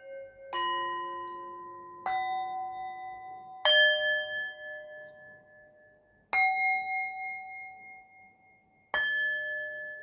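Meditation music of struck bell-like chimes: five single notes a couple of seconds apart, each at a different pitch, ringing on and slowly fading.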